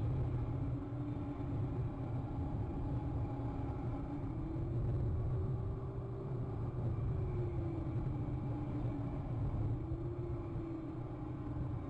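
A steady low rumble with a faint motor tone that drifts slowly up and down in pitch, like a distant engine.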